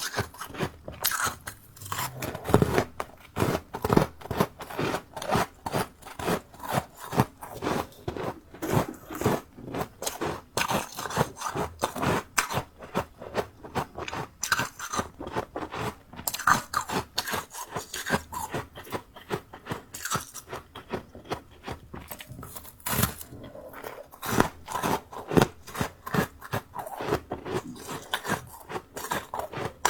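Close-miked crunching of powdery freezer-frost snow ice being bitten and chewed, a rapid, irregular run of crisp crunches, several a second.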